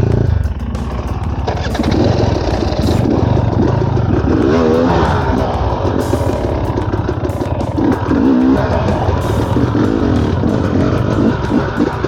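Enduro dirt bike engine revving, its pitch rising and falling over and over as the rider works the throttle.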